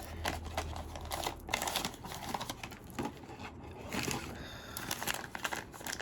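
Black blind-box bag crinkling in the hands as it is handled and torn open, a dense run of irregular crackles.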